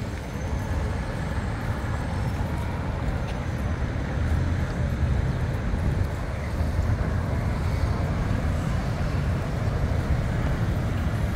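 Busy city street ambience: steady road traffic with a low rumble, and a crowd of pedestrians.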